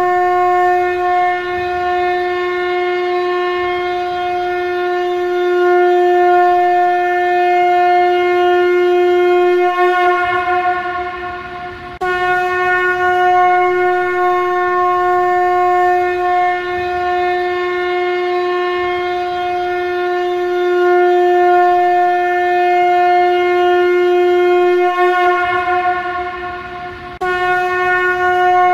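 Shankha, the Turbinella pyrum conch shell, blown as a ritual trumpet in long blasts held on one steady pitch. One blast fades out about ten seconds in. A new blast starts suddenly a second or so later, runs about fifteen seconds and fades, and another begins near the end.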